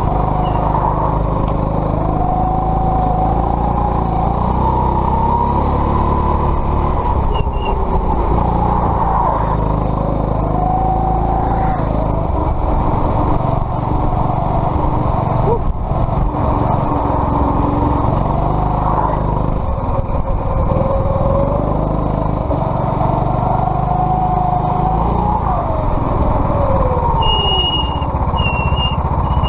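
Racing kart's engine running hard, heard from on board, its pitch rising and falling over and over as the throttle is opened and lifted through the corners. A high squeal comes in near the end, on and off, as the kart slows.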